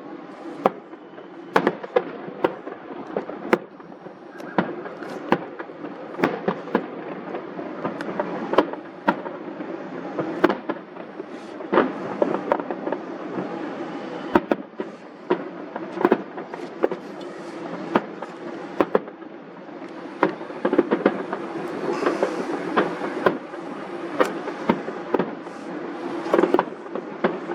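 Fireworks display: a steady run of sharp bangs and pops, often several close together, over a continuous noisy din.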